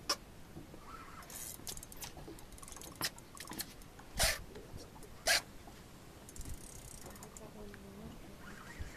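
A few separate sharp knocks and clicks, the loudest about four seconds in, with faint voices between them.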